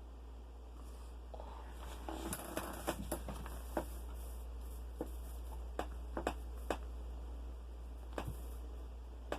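Self-administered joint cracking: about a dozen sharp, irregular pops of knuckles and other joints, with some soft rustling of movement between them.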